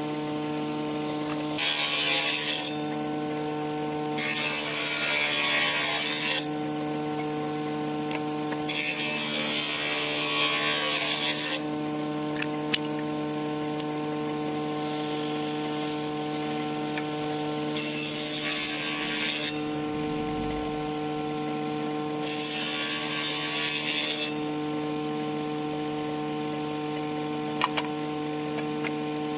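A power tool's motor runs with a steady hum while it cuts wood five times, each cut a loud hiss of two to three seconds, with a sharp click or two between cuts.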